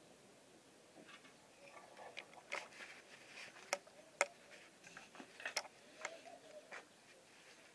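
Scattered light clicks and knocks, a few sharper ones in the middle, from objects or utensils being handled. A dove coos faintly near the end.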